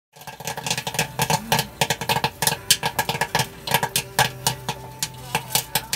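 Popcorn popping in a popcorn machine's kettle: rapid, irregular pops, several a second, over a steady hum.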